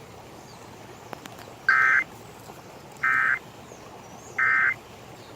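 Emergency Alert System end-of-message code: three short, identical bursts of buzzy digital data tones about 1.3 s apart over faint hiss, the signal that closes the alert.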